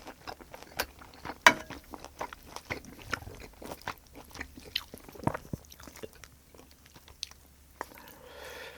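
A person eating braised kimchi stew and fried egg close to the microphone: wet chewing and biting with many sharp mouth clicks and smacks. A short hum from the eater near the end.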